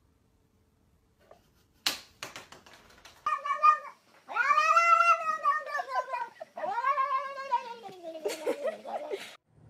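Calico domestic cat yowling: a short call, then two long drawn-out yowls that rise and fall in pitch, trailing off into lower, broken sounds. A few sharp clicks come just before the calls, about two seconds in.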